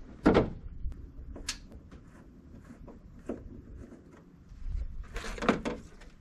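Plastic hood bug deflector being pried and pulled off the front edge of a pickup truck's hood: scattered clicks and knocks, then a louder clatter about five seconds in as it comes free.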